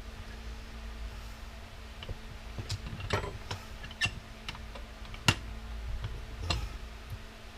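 Scattered light clicks and taps of hand tools working on the metal pump parts of an electric power washer, prying at retaining clips, with one sharper click about five seconds in, over a faint steady hum.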